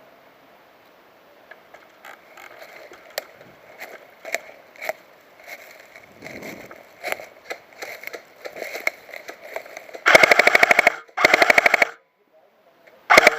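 Airsoft electric gun firing three bursts on full auto: a rapid, even rattle of shots lasting about a second, a second burst right after, and a short one near the end. Before the bursts there is faint rustling of movement with scattered small clicks.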